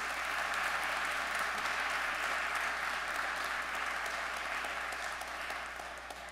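Congregation and clergy applauding, a steady dense patter of clapping that tapers off slightly near the end.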